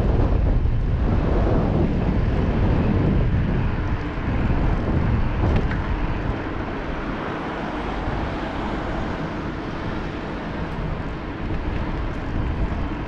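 Wind buffeting a moving action camera's microphone, a loud, uneven rumbling noise, somewhat louder for the first few seconds and then easing a little.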